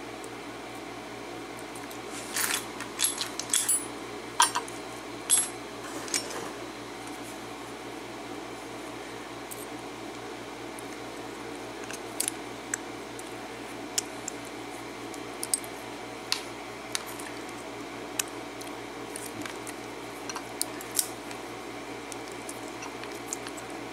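Small metal clicks and clinks from a pin-tumbler padlock being handled and taken apart with tools: a quick cluster of sharp clicks a few seconds in, then scattered single ticks, over a steady background hum.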